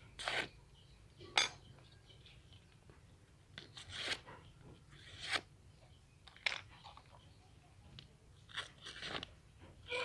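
Sharp homemade steel blades slicing through a sheet of paper: several short rasping cuts, spaced irregularly, as the edges are tested for sharpness.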